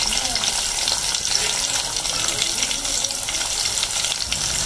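Sliced onions and cumin seeds sizzling steadily in hot oil in an aluminium pot, a continuous crackling hiss.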